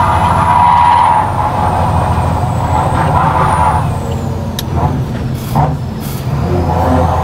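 Renault Premium 370 truck's diesel engine running under way, heard from inside the cab, with a faint high whine over the low rumble. About four seconds in the engine note drops as the truck slows for a bend, with a click and a couple of short air hisses from the brakes.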